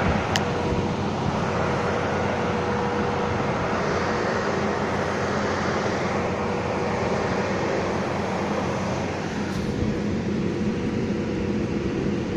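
Lawn mower engine running steadily.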